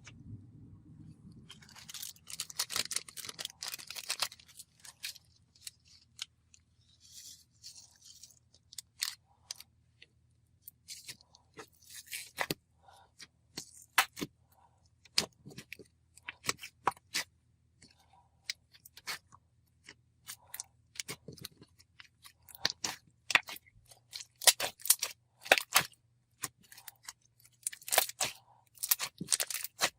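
Butter slime mixed with jelly cubes and bingsu beads being squished and pressed by hand: irregular crunches and sharp clicky pops, with a denser crackling stretch about two to four seconds in.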